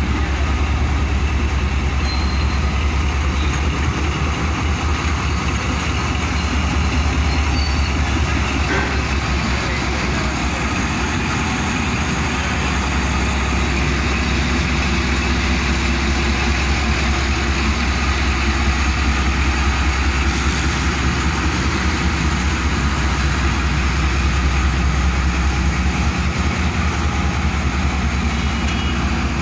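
ZCU-30 class (GE U30C) diesel-electric locomotive running close by: a loud, steady diesel rumble with a deep throb that carries through without a break.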